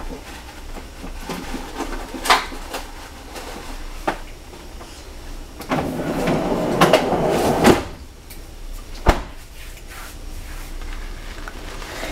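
Off-camera kitchen handling noise: a few sharp knocks, at about two, four and nine seconds in, and a longer stretch of clattering and rustling in the middle, like cupboards or drawers being worked.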